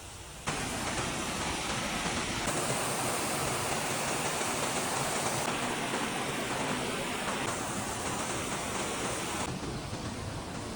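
Waterfall running: a steady rush of falling water that starts abruptly about half a second in and eases a little near the end.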